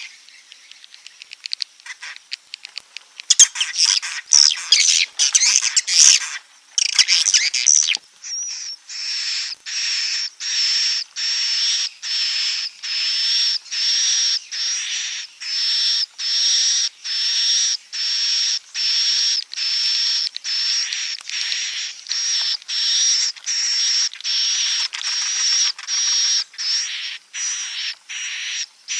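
Swiftlet calls: rapid faint clicking, then dense chattering chirps, then from about eight seconds a steady run of buzzy, high twittering calls repeated a little more than once a second. This is a swiftlet roosting lure sound, played to draw swiftlets in to roost and nest.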